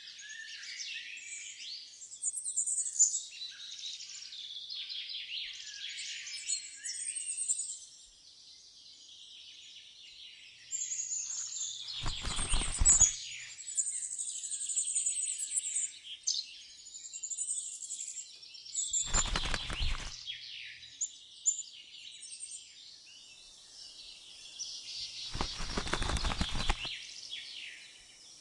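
Small songbirds chirping and twittering almost without a break, quick high chirps overlapping one another. Three short rushing noise bursts cut through, several seconds apart.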